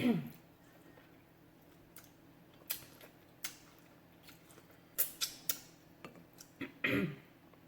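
Close-up eating sounds: scattered wet mouth clicks and smacks of chewing, with a short vocal sound falling in pitch at the start and again near the end.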